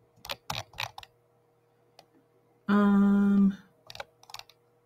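Computer keyboard typing and clicking in a few short runs, with a loud, steady, even-pitched hum lasting just under a second near the middle.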